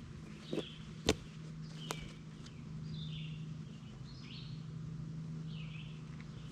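Birds chirping in short calls, with three sharp clicks in the first two seconds and a low steady hum underneath.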